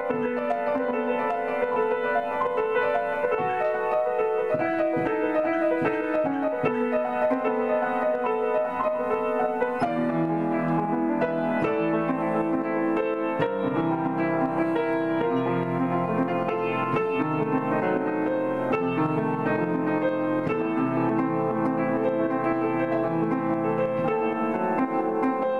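Piano playing a continuous run of notes as a grade 5 practice piece. About ten seconds in, lower bass notes join and the sound grows fuller.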